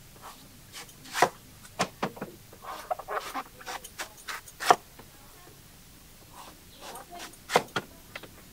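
Cleaver chopping and slicing into the husk of a green young coconut on a wooden block: irregular sharp chops, the loudest about a second in, near the middle and near the end, with a quieter pause between.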